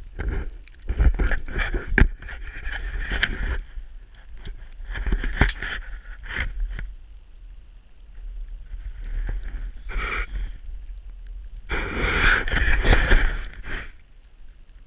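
Wind-packed snow scraped and crunched in several uneven bouts as something is forced down into it for a snow-depth reading, with wind rumbling on the microphone.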